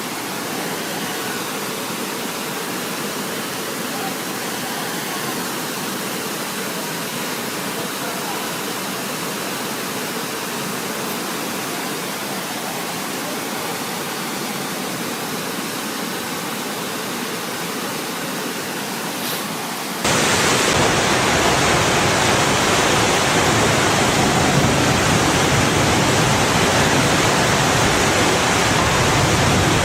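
Steady rushing of floodwater from a river over its banks. About two-thirds of the way through it cuts abruptly to a louder, fuller rushing noise.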